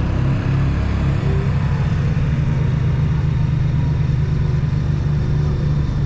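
Honda Goldwing F6B's flat-six engine running steadily at low speed as the motorcycle rolls slowly along the road.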